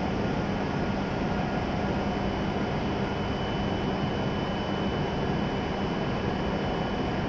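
E7-series Shinkansen standing at the platform with its air-conditioning and onboard equipment running: a steady hum with a low drone, joined about two and a half seconds in by a thin, high steady whine.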